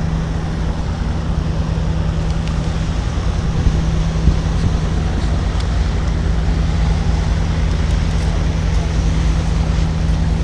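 Steady low machinery hum with one constant tone, from the docked cruise ship Diamond Princess's onboard machinery running at berth. Wind rumbles on the microphone underneath it.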